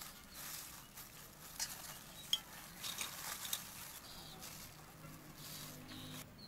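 Plastic-gloved hands handling raw shrimp in an aluminium basin: soft crinkling and rustling with a few sharp clicks.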